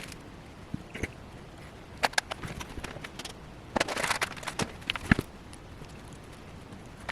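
Scattered small clicks and light knocks in short clusters, the sound of small parts and tools being handled at a workbench, over a faint steady hiss.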